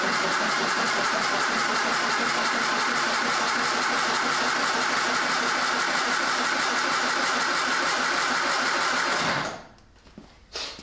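1966 Triumph Spitfire's 1147cc four-cylinder engine running steadily on choke just after a cold start, having caught on the key. The sound cuts off suddenly about nine and a half seconds in.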